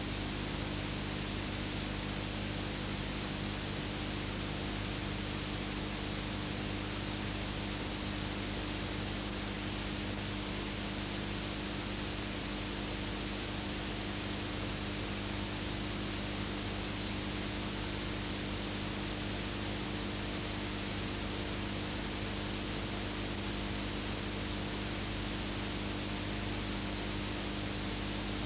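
Steady hiss with a low hum running under it, unchanged throughout. This is the noise floor of an old film transfer with no recorded sound, not the railway itself.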